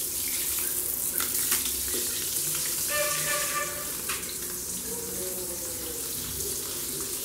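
Water running steadily onto a tiled bathroom floor as it is rinsed after scrubbing, washing away the loosened grime and scouring powder.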